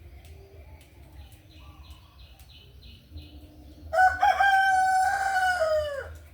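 A rooster crowing once, about four seconds in: one long call of about two seconds that drops in pitch as it ends. Before it there is only quiet background.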